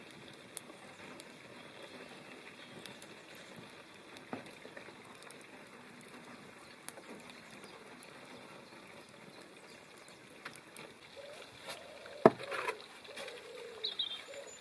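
Wild greens sizzling and steaming in a pan over a wood fire: a steady hiss with faint crackles and pops. Near the end comes a single sharp knock, the loudest sound, followed by some clattering and a brief high chirp.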